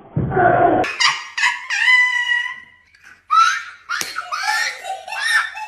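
A person laughing hard. A breathy snort opens it, then comes a run of high-pitched, squealing laughs in short bursts.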